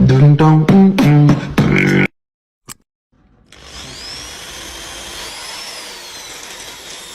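A short loud burst of rhythmic music with vocal-percussion-like beats, cutting off about two seconds in. After a brief silence with a single click, a steady hiss begins and continues, with faint high whistling glides over it.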